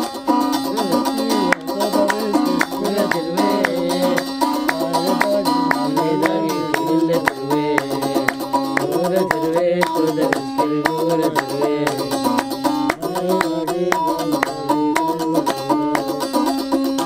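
Kissir, the Kunuz Nubian lyre, plucked in a repeating figure, with men singing and steady hand-clapping keeping the beat.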